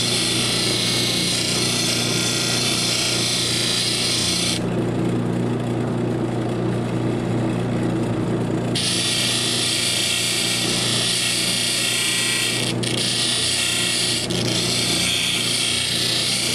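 Lapidary lap machine's motor humming steadily while a gemstone on a dop stick is ground against the 1200-grit lap, giving a high scraping hiss. The hiss drops out for about four seconds midway and breaks twice briefly later, as the stone comes off the lap; the motor hum runs on.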